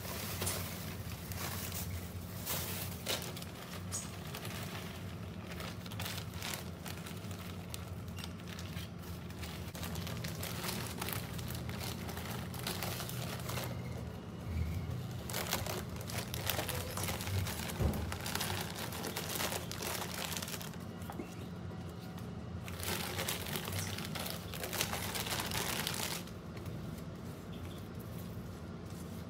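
A plastic potting-soil bag crinkling and loose potting soil rustling as gloved hands work it into a planter box, in irregular bursts, with a few seconds of denser, steadier rustling a little over three-quarters of the way through.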